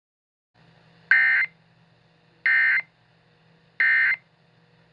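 Emergency Alert System end-of-message (SAME EOM) data bursts: three short bursts of data tones about a second and a half apart over a faint low hum. They mark the end of the alert message.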